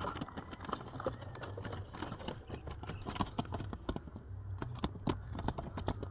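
Irregular light tapping and scuffling of pigeons moving about on the wooden loft boards and beams, over a steady low rumble.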